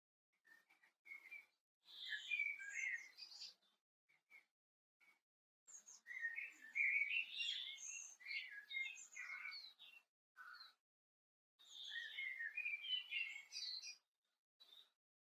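A songbird singing three phrases of quick, varied high notes, with a few short single notes between them.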